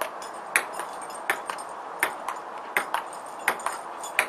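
Ping pong rally: the ball clicks sharply off the table and the paddles in quick pairs, a bounce and a hit, about every three-quarters of a second.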